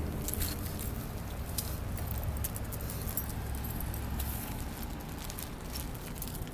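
Small metal pieces lightly jingling and clicking at irregular moments, over a low rumble that fades about four and a half seconds in.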